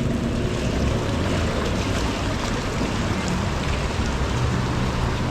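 Heavy rain falling on knee-deep flood water: a steady hiss of rain and water, with a low rumble underneath.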